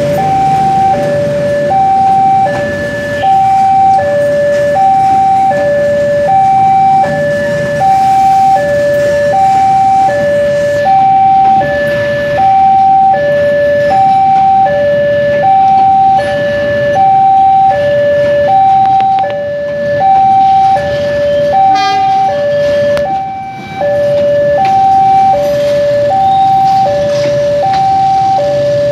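Railway level-crossing warning alarm: an electronic chime alternating steadily between a higher and a lower tone, one tone about every three-quarters of a second, over the low rumble of a passing train. A short run of rapid clicks comes about two-thirds of the way through.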